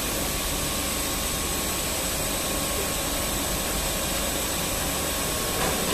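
XV361A 10-spindle glass straight-line beveling machine running, a steady mechanical noise with a thin, steady high whine over it.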